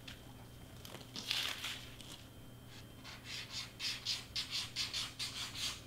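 Hands rubbing and pressing crepe paper streamers flat: a soft swish about a second in, then a quick run of faint rustling strokes, about four a second, in the second half.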